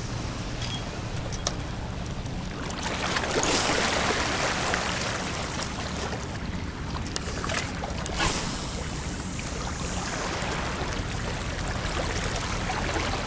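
Shoreline ambience: steady wind rumble on the microphone, with water washing over the rocks that swells into a louder rush twice, a few seconds in and again past the middle. A couple of light clicks sound in the first two seconds.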